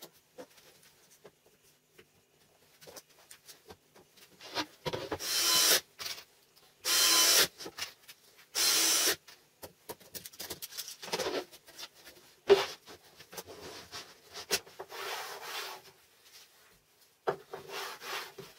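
Wooden sled parts of MDF and solid wood rubbing and scraping against each other: three long scrapes about a second and a half apart, then shorter, quieter ones, with one sharp knock partway through.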